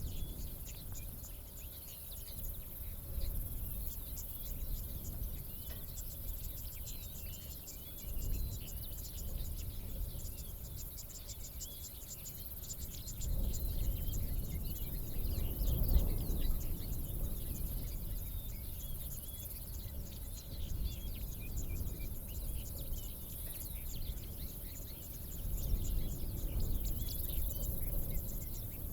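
Savanna daytime ambience: insects chirping in a dense, rapid ticking with a steady high hiss, and small birds calling with scattered short chirps. A low rumble underneath swells around the middle and again near the end.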